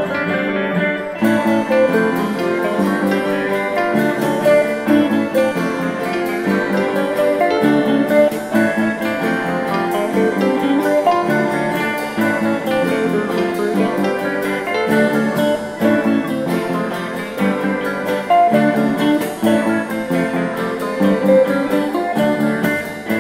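Background music led by guitar, with a steady rhythm.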